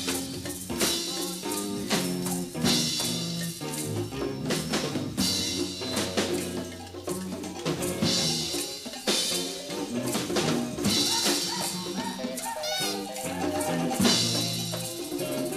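Band music from a 1974 studio session, heard from a cassette dub of the reel-to-reel master. A drum kit plays with frequent cymbal and drum hits over held low notes that change pitch, with a brief wavering high note about three quarters of the way through.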